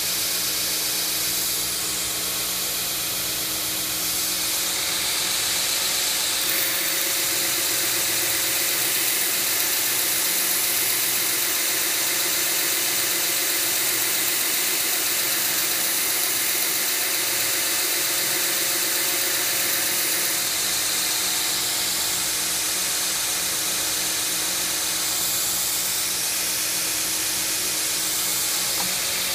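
2x72 belt grinder running steadily, its ceramic belt spinning over a 4-inch contact wheel with a constant hum and hiss. From about six seconds in until about twenty seconds in, a steel straight-razor blank is held against the belt to set its hollow grind, adding a harsher, brighter grinding hiss.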